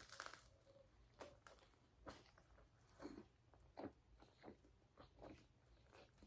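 Faint chewing of a mouthful of cheesesteak, with soft, irregular biting and mouth sounds every half second to a second.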